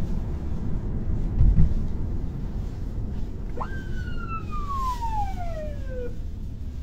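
A police siren gives a single wail about three and a half seconds in, rising sharply and then falling slowly over about two and a half seconds. It is heard from inside a moving car, over the steady low rumble of the cabin.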